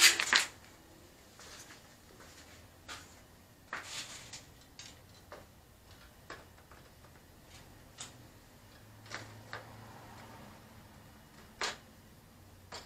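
Scattered light clicks and knocks, about a dozen at uneven intervals, with a sharper click near the end: hands moving and handling small parts around a riding mower's engine, in a quiet workshop.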